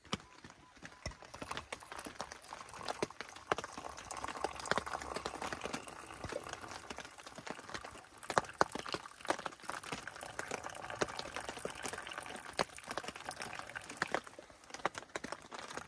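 Water poured in a thin, steady stream from a small camp pot into an enamel mug of coffee, splashing and gurgling into the liquid, with many small ticks of drops and splashes.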